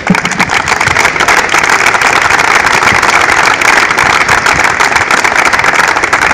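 A crowd applauding, dense steady clapping that swells in right at the start.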